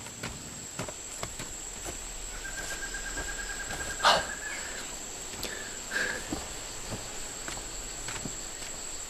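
Insects chirring steadily in the background, with scattered faint clicks and one brief louder sound about four seconds in.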